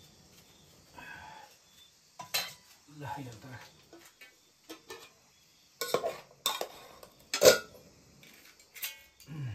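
Metal spoons clinking and scraping against metal plates and pots as food is served, with several sharp separate clinks, the loudest about seven and a half seconds in.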